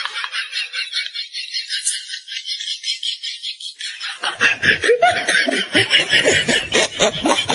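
Laughter: fast, pulsing high-pitched giggling, with lower, fuller laughing joining about four seconds in.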